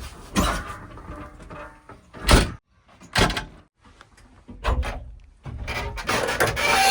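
A series of irregular heavy knocks and clunks, about a second apart, with a denser clattering stretch near the end.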